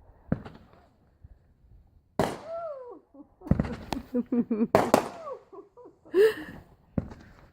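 Consumer fireworks going off: a sharp bang, another about two seconds in, then a rapid string of crackling pops, and one more bang near the end.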